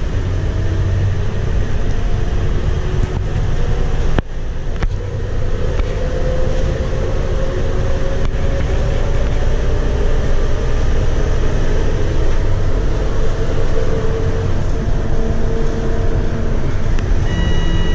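Interior of a Scania K230UB bus under way: the rear-mounted Scania DC9 8.9-litre five-cylinder diesel and ZF six-speed automatic running, with steady road rumble. There is a brief drop and a click about four seconds in, then a whine that rises slowly in pitch.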